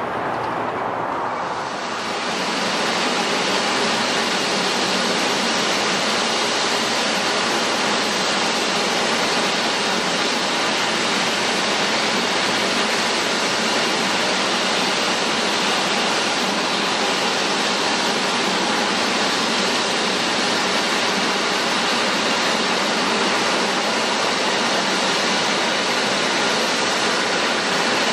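Steady rushing jet noise of a Japan Airlines Airbus A350's twin Rolls-Royce Trent XWB engines at taxi power. About two seconds in, the noise fills out in its higher range and grows slightly louder.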